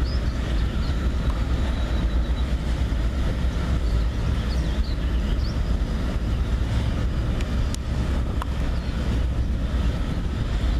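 Freight cars rolling steadily across a steel girder railroad bridge, a continuous low rumble of wheels on rail.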